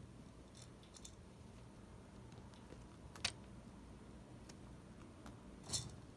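A few sharp clicks and light taps of a chinchilla moving about its wire cage, the two loudest about three seconds in and near the end, over a low steady room hum.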